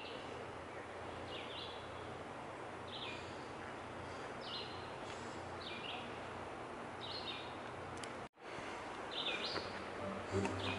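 A bird calling over and over, short high calls about every second and a half, over a steady outdoor hiss.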